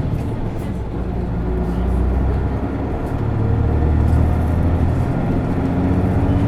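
Isuzu Erga city bus's diesel engine pulling hard under acceleration, heard from on board, its note rising and falling as the revs change.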